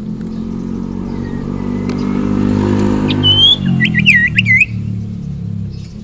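A motor vehicle engine passing, swelling to its loudest near the middle and fading away. Over it, a bird gives a quick burst of loud whistled notes that sweep sharply up and down, starting about three seconds in and lasting about a second and a half.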